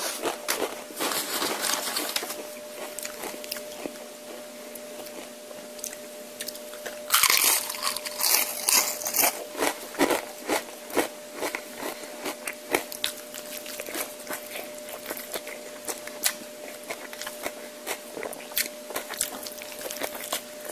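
A man chewing and crunching food close to the microphone, with many short wet mouth clicks. About seven seconds in, a louder crunching hiss lasts about two seconds. A faint steady hum runs underneath.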